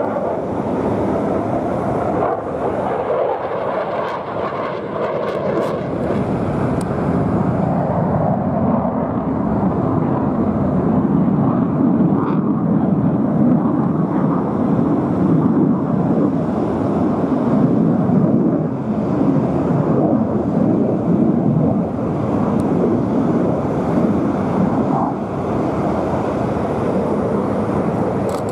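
Jet noise from a HAL Tejas fighter's single turbofan engine during a flying display pass: a steady, dense rushing rumble that swells and deepens in the middle and eases a little near the end.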